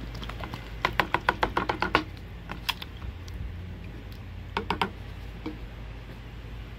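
Plastic gold pan and squeeze bottle being handled on a glass tabletop while water is squirted into the pan: a quick run of about eight sharp taps about a second in, a couple more shortly after, and another short cluster of three or four near the end.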